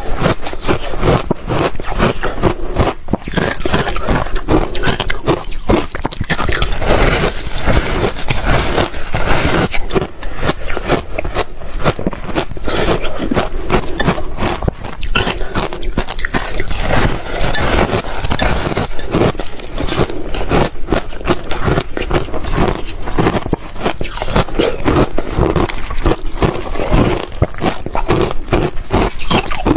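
Ice being bitten and chewed: loud, rapid, continuous crunching.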